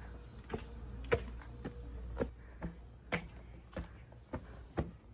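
Footsteps on a steep concrete alley, about two steps a second, each a short scuffing tap.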